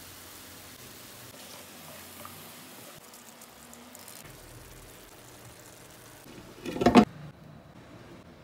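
Tomato sauce simmering quietly in a clay tajine, a faint steady sizzle. Near the end, a short loud pitched sound lasting well under a second.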